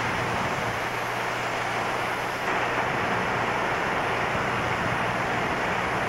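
Steady din of a sawmill's bandsaws and slab conveyor running, with a constant low hum under it.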